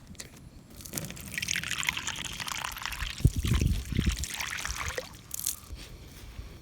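Water pouring in a steady trickle from about a second and a half in until about five seconds, with a few low knocks partway through.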